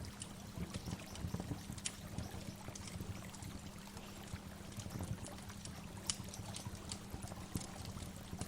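Waterfall: water pouring and splashing steadily, with many small sharp splashes throughout.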